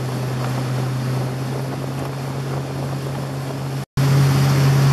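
Motorboat engine running steadily under way, a constant low hum with wind and water noise over it. It cuts out for an instant near the end and comes back louder.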